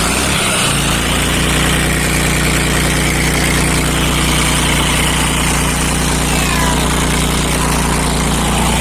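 Diesel truck engine idling steadily through a 4½-inch exhaust, a low, even note with no revving.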